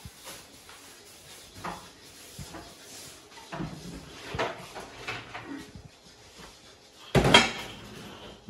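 A few light knocks and taps, then a cupboard door shut with one loud bang about seven seconds in.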